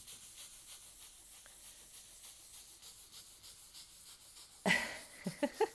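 Soft tissue rubbing back and forth over inked card stock, a faint, steady papery swishing as the ink is wiped and blended. Near the end a sudden louder sound and a few short voice-like sounds break in.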